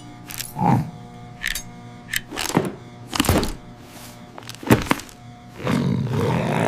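Cartoon background music with a series of sudden thunk-like sound effects. A louder steady noise comes in near the end.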